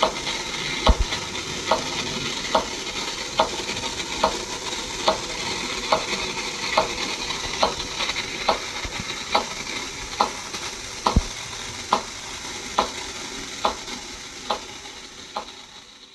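Battery-operated 1950s tin Popcorn Vendor toy running: the white balls rattle and bounce without pause inside its popping machine, over a sharp click that repeats a little more than once a second. The sound fades away at the very end.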